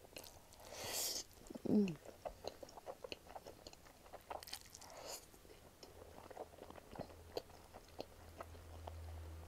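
Close-up slurping of spicy ramen noodles and wet chewing, with many small mouth clicks and two longer slurps about one and five seconds in. A short hummed 'mm' from the eater comes a little under two seconds in.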